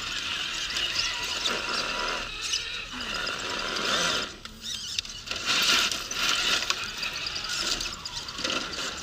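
Radio-control car's electric motor and gears whining in spells as it crawls up a trail, easing off briefly twice.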